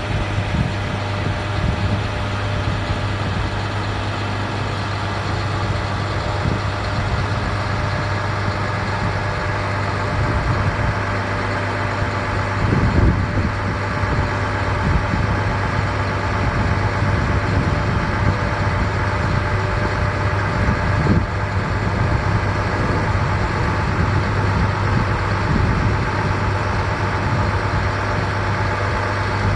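International 4300 medium-duty diesel truck engine idling steadily, with a brief louder knock a little before halfway.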